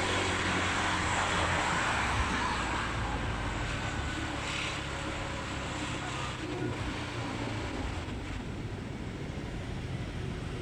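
Motorbike riding through city traffic: a steady low engine drone under a rush of wind noise, getting a little quieter in the second half.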